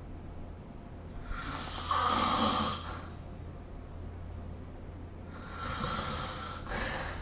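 A person snoring in their sleep. One loud snore comes about two seconds in, then a quieter, longer snoring breath starts about five seconds in.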